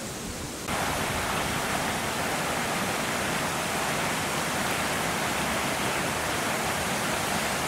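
Steady, even rushing noise with no distinct events in it, stepping up in loudness about a second in and then holding level.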